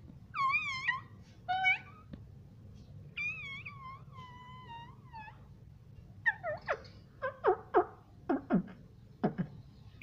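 Rose-ringed parakeet (Indian ringneck) calling: a few drawn-out, wavering calls in the first half, then a quick run of short, sharp, falling chirps.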